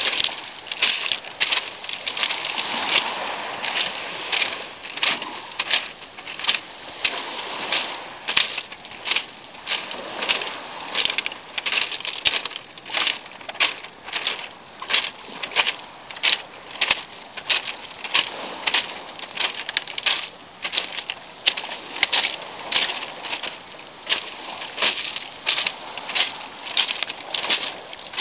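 Beach pebbles clicking and crunching in a quick, irregular run of short crisp sounds, about one or two a second, over a soft steady rush.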